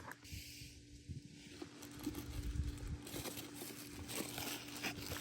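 Faint, scattered clicks and taps of hands handling small parts and tools, over a steady faint hum.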